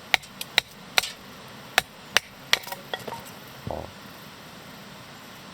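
Hardwood firewood being split with a blade: about ten sharp, irregularly spaced wooden knocks as the blade is struck into the log, followed by a single duller thud about four seconds in.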